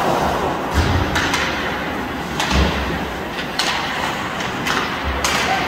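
Ice hockey play at a rink: a string of sharp knocks and three heavier thuds as sticks, puck and players strike the boards.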